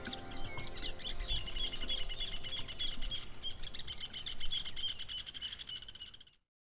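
Birds chirping, with one bird repeating a quick, even string of high chirps for a few seconds, over the soft tail of background music. All sound cuts off near the end.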